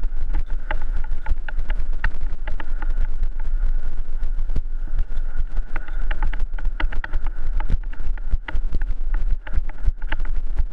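Mountain bike ridden fast over a dirt singletrack, rattling and clattering with dense, irregular clicks and knocks over a constant heavy low rumble.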